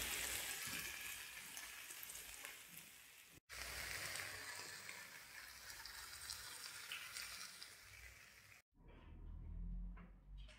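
Potatoes with onions and mushrooms sizzling as they fry in a pan. The sizzle is heard in two stretches, broken by a cut a little over three seconds in, each slowly fading. It stops about three-quarters of the way through, giving way to a faint low rumble.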